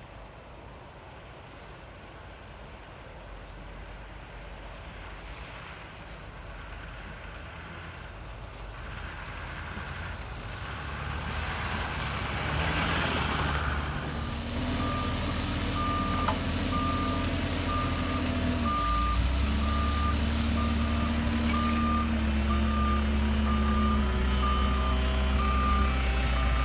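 Fire truck engine running, growing steadily louder as it comes closer, with its pitch shifting partway through. About halfway in, a reversing alarm starts beeping in a steady rhythm, roughly once a second, as the truck backs up.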